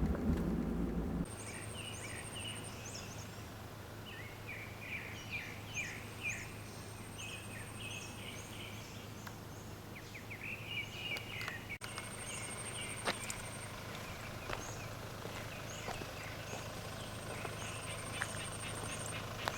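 Wild birds chirping in a forest, many short calls sweeping downward, with a thin high trill that comes and goes in bouts of a couple of seconds. A low engine-like rumble cuts off about a second in.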